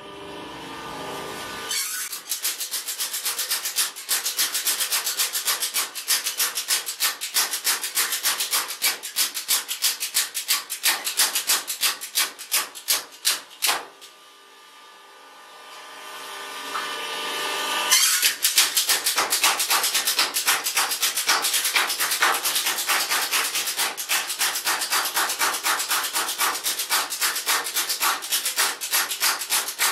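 Belt-driven mechanical power hammer forging a red-hot steel bar into shims for stone-splitting wedges: the motor spins up, then the ram strikes the hot steel in rapid, regular blows. The blows stop about halfway through while the hammer runs on more quietly, then build back up and continue.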